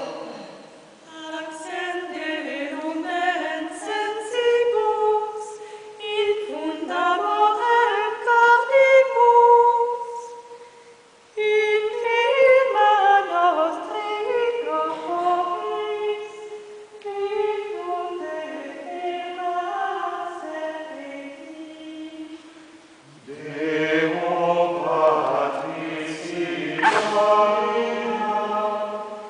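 Gregorian chant sung a cappella by a small mixed choir. Women's voices carry a single melodic line with a short break about a third of the way through. Lower men's voices come in near the end.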